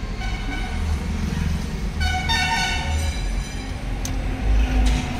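Vehicle horn honking in traffic, heard from inside a moving car's cabin: a fainter honk about half a second in, then a louder honk about a second long around two seconds in, over the car's steady low road rumble.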